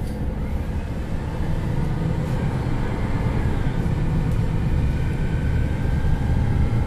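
A MAN Lions City NL323 diesel city bus driving, heard from on board: a steady low engine and drive noise that grows slightly louder over the last few seconds.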